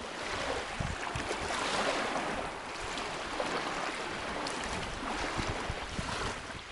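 Water waves washing and splashing, a steady rushing hiss that rises and falls in slow swells.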